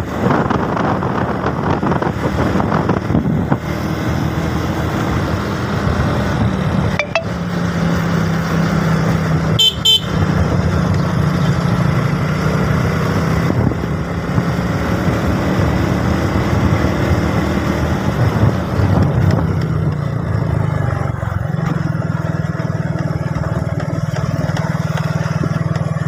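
Motorcycle engine running steadily under way, with rushing noise from the ride; a short, high horn beep about ten seconds in.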